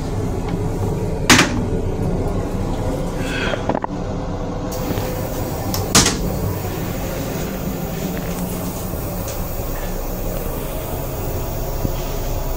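Steady low rumble and hum inside an M8 railcar restroom, with two sharp plastic knocks, about a second in and about six seconds in; the second comes as a hand lowers the toilet lid.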